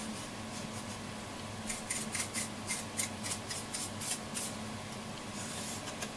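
Quick scratchy strokes of a small hand tool working on the radio's dial panel, about four a second for roughly three seconds from a little under two seconds in, over a faint steady hum.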